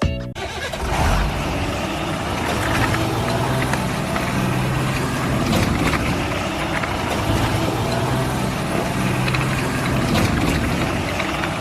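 A vehicle engine running steadily, with a few light clicks over it.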